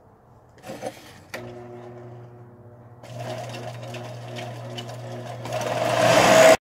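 Harbor Freight Central Machinery 4x36 belt and disc sander switched on with a click a little over a second in, its electric motor humming steadily as the belt runs. From about halfway the sound grows rougher, and near the end it turns loud and harsh as steel is ground on the belt.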